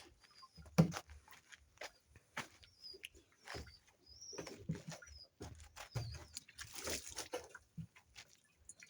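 Scattered knocks and clatters of equipment being handled, with faint short high chirps recurring every second or so.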